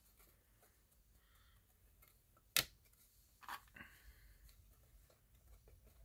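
Quiet handling of wooden organizer pieces: one sharp click about two and a half seconds in, then a few softer taps and a brief rustle a second later as a hand picks at small rubber bands in a wooden tray.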